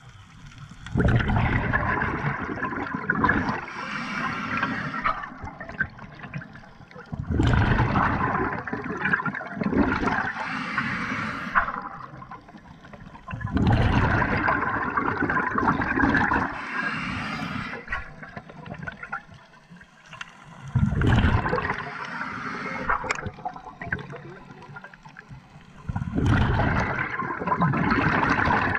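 A scuba diver's breathing through a regulator underwater: exhaled air bubbling and gurgling out in loud surges every five to seven seconds, with quieter stretches between breaths.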